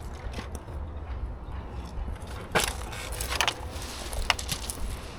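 A few irregular crunching clicks, the loudest about halfway through, over a steady low rumble.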